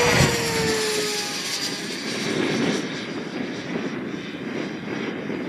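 Electric ducted-fan RC model F-16 jet flying past. Its steady fan whine drops in pitch in the first second as it goes by, then gives way to a fading rushing sound as it flies away.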